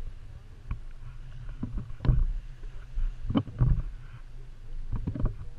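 Water lapping against the hull of a small metal fishing boat over a low steady rumble, with several irregular sharp knocks.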